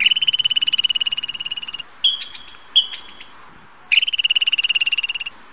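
Squirrel chattering: two long, rapid, high-pitched trills, each a second and a half or so, with a couple of short chirps between them and another trill starting at the very end.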